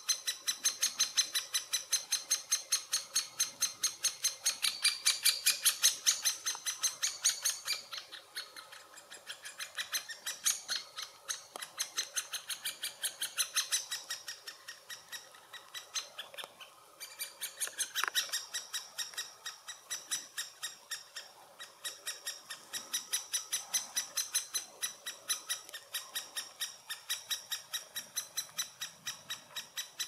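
Great spotted woodpecker nestlings giving their begging calls from inside the nest hole: a continuous, high-pitched, rhythmic chatter of short calls, about four a second.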